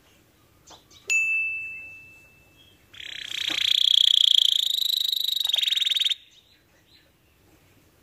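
Domestic canary singing: a loud, fast rolling trill, high-pitched, lasting about three seconds and ending abruptly. It is preceded about a second in by a single clear ringing note that fades away.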